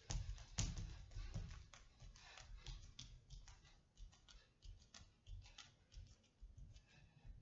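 Bare feet stepping, stamping and landing on a wooden studio floor: irregular thuds and light taps, heaviest in the first second or so and thinning out toward the end.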